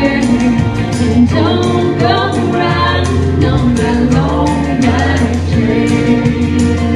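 A woman singing a country song into a microphone over instrumental accompaniment with a steady beat.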